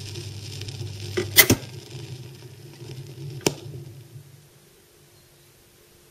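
Record player stylus riding the groove of a 45 rpm record after the music has ended: low hum and crackling surface noise, with two loud clicks about a second and a half in and again about two seconds later. The noise then fades down to a faint steady tone.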